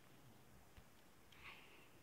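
Near silence: room tone, with one faint brief high-pitched blip about one and a half seconds in.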